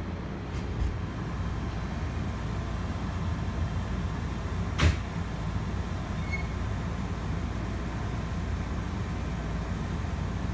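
Steady low rumble and hum of a train car, with one sharp click about five seconds in.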